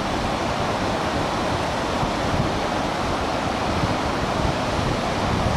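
River water rushing over and between boulders in a rocky mountain stream: a steady, even rush with no breaks.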